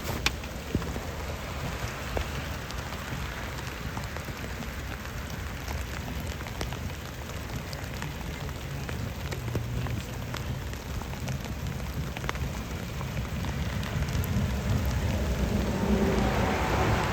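Rain falling steadily on a vehicle, with scattered sharp ticks of single drops. Near the end a low hum with a few steady tones comes up and grows louder.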